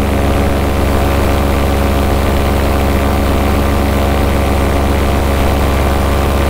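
Paramotor engine and propeller running steadily in flight, a loud, even drone with no change in pitch.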